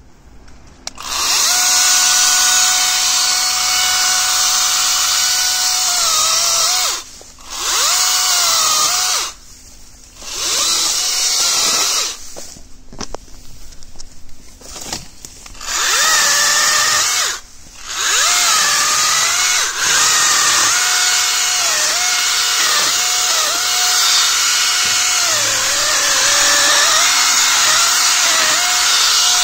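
INGCO CGSLI20682 20V cordless mini chainsaw running with a steady high whine, its pitch sagging each time the chain bites into a branch. The motor stops and restarts several times between cuts.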